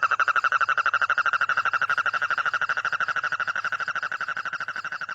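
A frog calling in one long, fast trill: a rapid, even pulsing at a steady pitch that slowly grows fainter toward the end.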